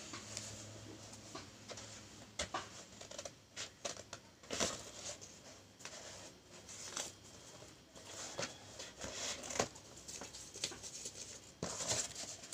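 Corrugated cardboard being handled and cut with a craft knife: irregular scrapes, rustles and sharp clicks, a few of them louder, about 4.5, 9.5 and 12 seconds in.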